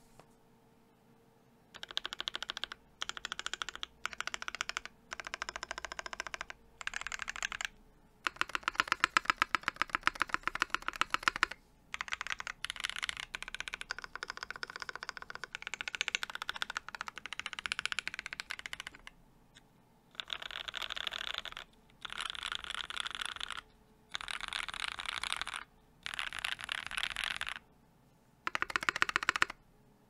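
Mechanical keyboard with lubed and filmed Black Cherry Pie linear switches, a brass plate and GMK keycaps, typed in short bursts of rapid keystrokes separated by brief pauses. A longer, faster run comes about eight seconds in.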